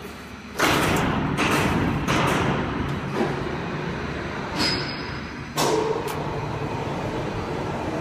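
Cable tray production machine running: a steady low machine hum with loud noisy clattering that starts suddenly about half a second in and breaks out again several times.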